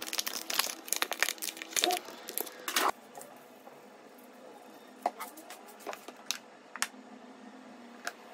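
Plastic food packaging, a film-sealed plastic tray, crinkling and tearing as it is opened: a dense run of crackles for about three seconds, then a few scattered clicks and taps.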